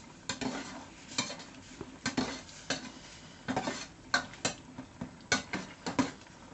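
Metal utensil clinking and scraping against a bowl as the grilled-pork salad is stirred and mixed. The clinks come irregularly, roughly one or two a second.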